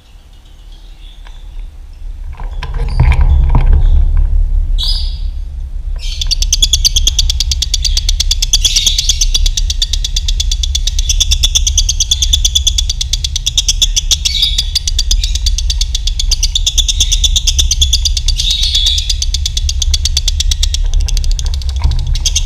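Lovebird singing its long ngekek: a very rapid, unbroken chattering trill that starts about six seconds in and runs for about sixteen seconds, after a short high call. A steady low rumble runs underneath.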